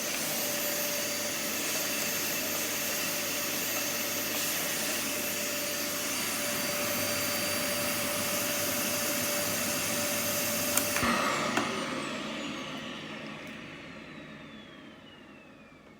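Vacuum cleaner running steadily, then switched off with a click about eleven seconds in; the motor winds down with a falling whine that fades away.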